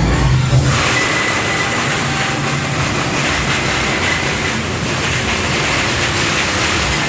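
Loud, steady hissing rush that sets in abruptly about half a second in as the music drops away, with a faint thin whistle over it.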